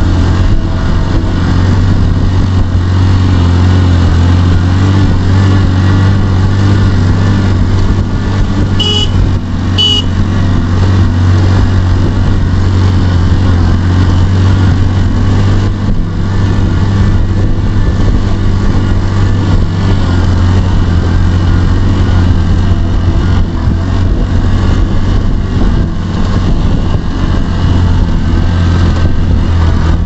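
Engine of the vehicle they are riding on, running at a steady pace with a loud low drone and road and wind noise. About nine and ten seconds in come two short high-pitched chirps.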